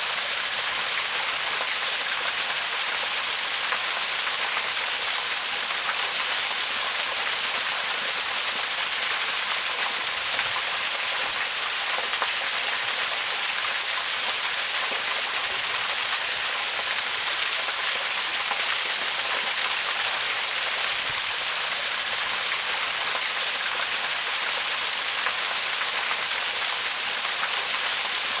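Waterfall: a steady, even rush of falling water, mostly high hiss with little low rumble.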